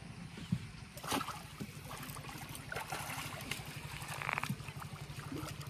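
A hooked fish splashing and thrashing at the water's surface as it is hauled in on a bamboo pole, with a sharp knock about a second in. A steady low hum runs underneath.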